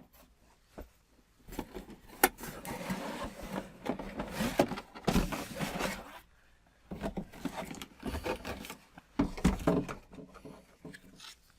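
Packaging being handled as items are pulled out of a box: irregular rustling and scraping with a few sharp clicks, the sharpest about two seconds in, and a short pause about halfway through.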